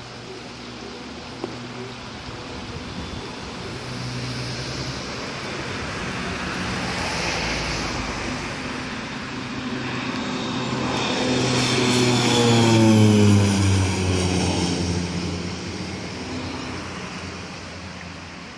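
Twin-engine propeller aircraft passing close by: the engine and propeller drone grows louder, peaks about two-thirds of the way through as its pitch drops, then fades away.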